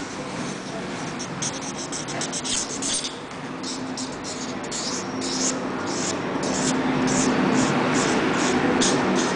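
Black felt-tip marker scratching across sketchbook paper in quick, repeated strokes, over a low background murmur.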